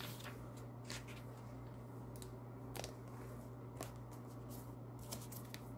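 Faint clicks and rustles of oracle cards being handled and drawn from the deck, a handful of separate ticks, over a steady low electrical hum.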